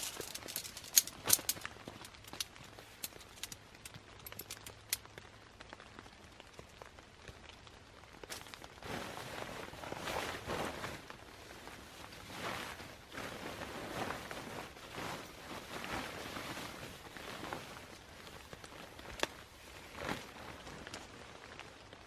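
Sleeping bag and bivy fabric rustling and swishing as they are handled and spread out, with several sharp clicks in the first few seconds.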